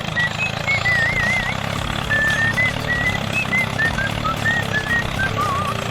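A steady, pulsing engine-like rumble from a toy construction vehicle, under a light whistle-like tune of single notes that step up and down, some with a wavering vibrato.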